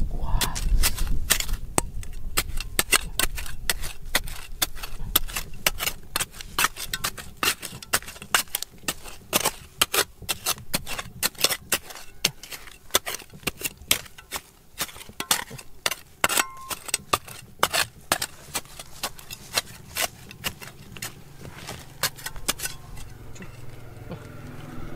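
Hand tool tapping and chipping at rock: a fast, irregular run of sharp clicks and knocks, several a second, that stops shortly before the end.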